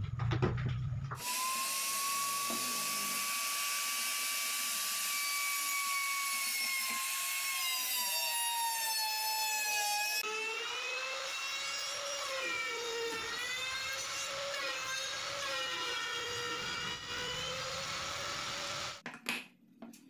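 Electric wood router cutting a slot through plywood: a high motor whine over heavy cutting hiss that starts about a second in, sinks in pitch as the bit takes the load, then runs lower and wavering as the wood is fed, and stops shortly before the end.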